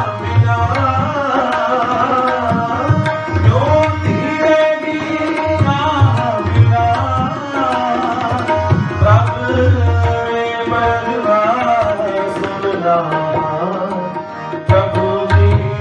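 Indian devotional music: tabla strokes under a melody that glides in pitch over steady held notes, without words.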